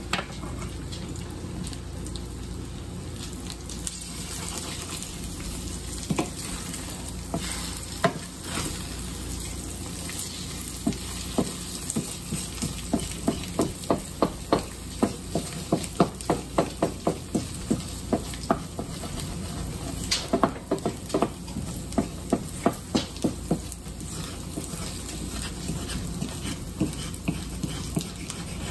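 Duck eggs frying and sizzling in a pan, with a run of sharp clicks about twice a second through the middle stretch.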